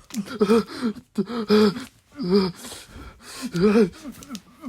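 A person imitating hiccups for the character: about four short voiced hiccup sounds, each rising and falling in pitch, roughly a second apart.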